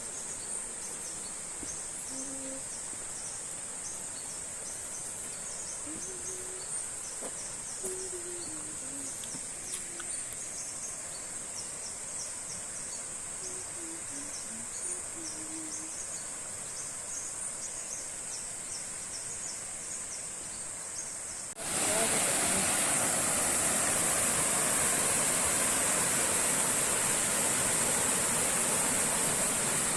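Insects trilling in a steady high-pitched drone, with faint short low calls now and then. About two-thirds of the way through, this cuts suddenly to loud, steady rushing water.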